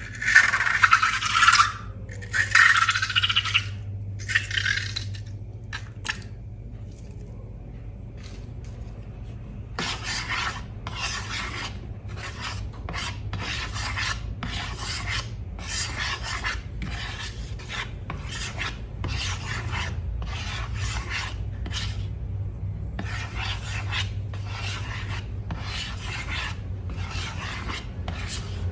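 Repeated rasping, rubbing strokes: a few louder scratchy bursts at first, then after a quieter stretch a long run of short strokes at about one to two a second, over a steady low hum.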